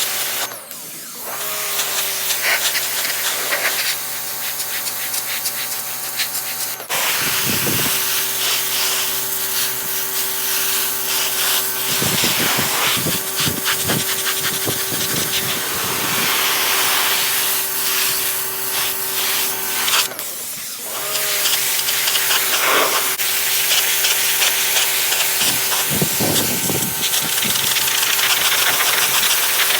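Sun Joe 13-amp electric pressure washer spraying through a 40-degree nozzle: a steady hiss of water spray over the pump motor's hum. The motor winds up near the start, cuts out briefly about 20 seconds in as the trigger is let go, then winds back up.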